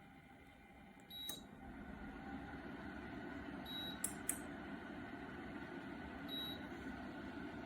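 OMISOON 2000W electric fan heater: its touch control panel gives three short high beeps as buttons are pressed, with a few clicks, over the steady whir of the fan, which gets louder about a second in.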